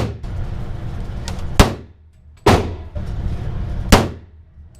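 Three shots from a Sig Sauer 1911 .45 ACP pistol, about a second apart, each a sharp crack that rings away.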